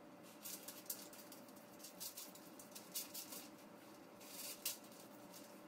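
A knife trimming fat off a raw beef brisket laid on aluminium foil: faint, irregular scratchy strokes of cutting and rustling.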